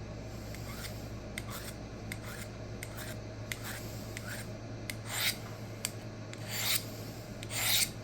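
Edge of a Böhler K110 steel knife being dragged across a hard surface to dull it on purpose. There are a few light clicks, then three rasping strokes, each swelling over about half a second. A low steady hum runs underneath.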